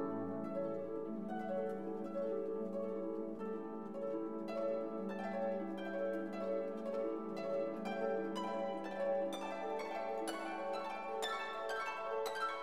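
Instrumental background music of plucked strings playing a flowing melody, with the notes struck more sharply in the second half.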